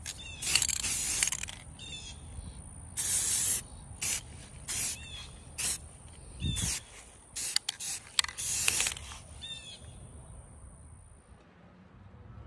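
Aerosol spray-paint can spraying in about ten short bursts, a second or less each, some close together, with a steady high-pitched whine underneath that stops near the end.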